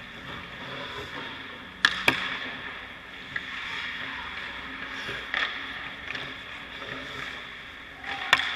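Ice hockey practice: steady scraping of skates on the ice, broken by a few sharp cracks of pucks, sticks and pads, with two close together about two seconds in and the loudest near the end as the goalie drops into a butterfly save.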